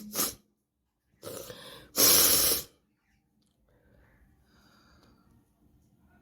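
A woman's forced nasal bursts: the tail of a sneeze at the very start, a softer rush of breath about a second in, then a loud blast of breath through the nose lasting over half a second, about two seconds in.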